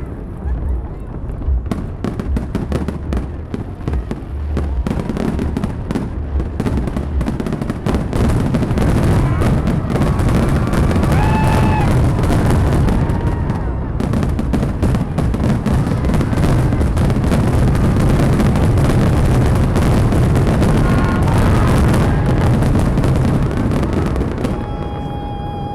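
Fireworks finale barrage: a continuous, rapid volley of shell bursts and crackle that thickens and grows louder about eight seconds in, then stays at full intensity.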